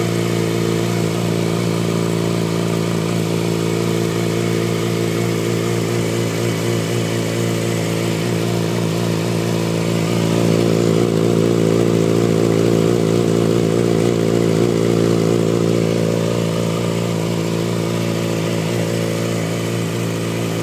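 Yamaha R6 sport bike's 600 cc inline-four engine running steadily at idle on its first startup after an oil change. It gets a little louder about ten seconds in and settles back about six seconds later.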